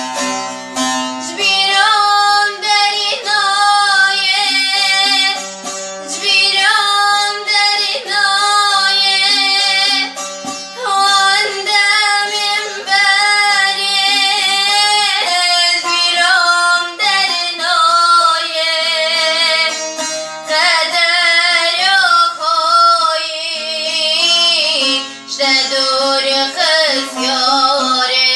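Kurdish song: a woman sings long, wavering, ornamented melodic lines over instrumental accompaniment.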